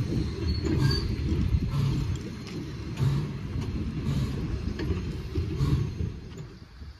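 Railroad caboose rolling slowly past close by: a steady low rumble of steel wheels on the rails, with a regular clack about once a second, fading near the end.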